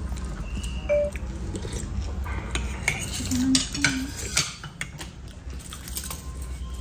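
Metal spoons clinking against ceramic soup bowls and plates, a scatter of light clicks and short rings, over a steady low hum.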